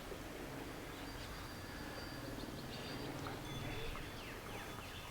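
Outdoor ambience: a low steady rumble, swelling briefly in the middle, with a few short high chirps that fall quickly in pitch near the end.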